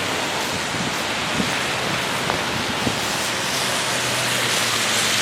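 Steady rushing wind noise on the microphone in a snowstorm, with a low steady hum underneath and a few faint knocks.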